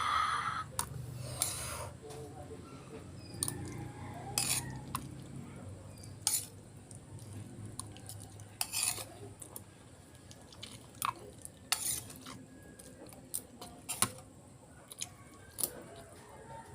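Cutlery clinking and scraping on a plate while eating, a few scattered clicks several seconds apart.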